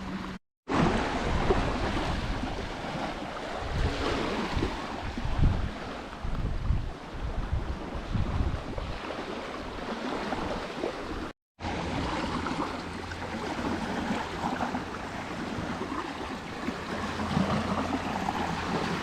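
Steady rush of water, with wind rumbling unevenly on the microphone; the sound cuts out briefly twice.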